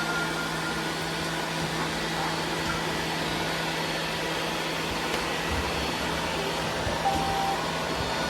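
Several robot vacuums running at once, a steady whir of their motors and brushes, with a short beep about seven seconds in.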